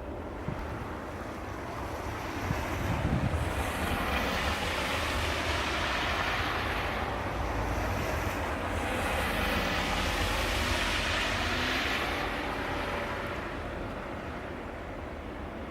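Two vehicles passing one after another on a slushy, snow-covered street, each tyre hiss swelling and then fading, over a steady low wind rumble on the microphone.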